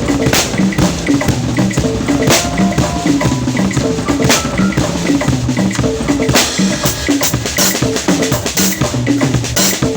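Drums and percussion playing a busy, steady rhythm, with short pitched notes repeating beneath the beat.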